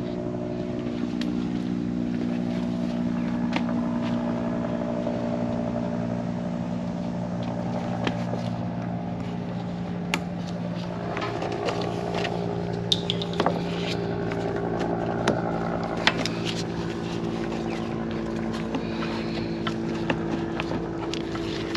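A motor or engine running steadily with a low hum, its pitch shifting slightly about halfway through, and scattered light clicks and taps over it.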